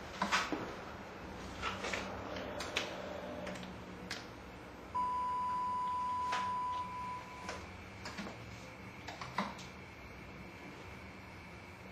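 Small clicks and knocks of recording equipment being handled during a tape change. About five seconds in, a steady high-pitched beep lasts about two seconds, followed by a fainter, higher steady tone.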